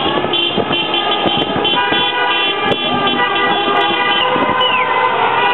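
Many car and scooter horns honking at once in celebration, their held tones overlapping and growing denser about two seconds in, over traffic noise. A short falling tone sounds near the end.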